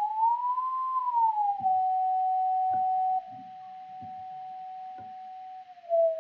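A pure sine tone from a software signal generator, its pitch swept by hand. It glides up to about 1 kHz around a second in, eases down and holds steady, drops in volume about three seconds in, then steps a little lower in pitch near the end. A few faint clicks sound under it.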